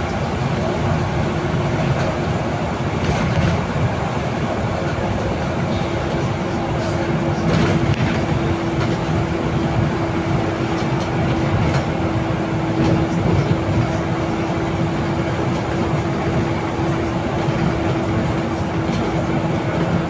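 Cabin noise of a Solaris Urbino 18 III articulated city bus under way on a wet road: a steady drone from the drivetrain and tyres, with a steady whine that grows stronger about four seconds in.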